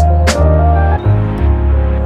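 Background music: instrumental track with a steady bass line, sustained synth or keyboard notes and a drum hit at the start.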